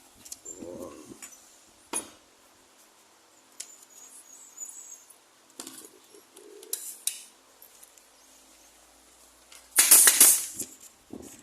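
Scattered light knocks and clicks of cabinet parts and hardware being handled during assembly, with a louder clatter about ten seconds in.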